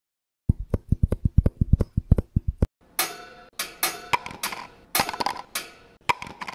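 Coins clinking as a sound effect: a rapid run of low taps for about two seconds, then about nine sharp metallic clinks with short ringing.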